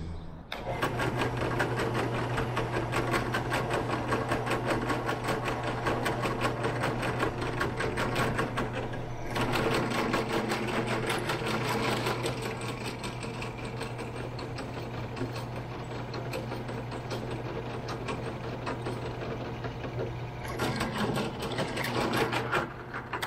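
Benchtop drill press starts about a second in and runs steadily with a low motor hum and a rapid mechanical clatter. It gets louder around a third of the way in and again near the end as the bit is fed into the workpiece, and stops just before the end.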